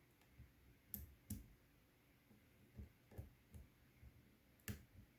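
Faint, scattered clicks and taps of a lock pick working the pins of a five-pin GEBA pin tumbler lock under tension. Sharper clicks come about a second in, again a moment later, and near the end.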